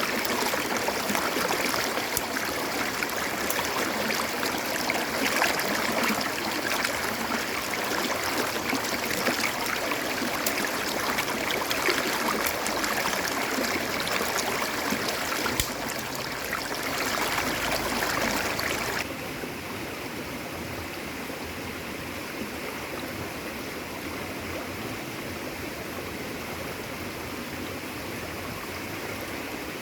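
Steady rush of flowing stream water. About nineteen seconds in it drops suddenly to a quieter, duller rush.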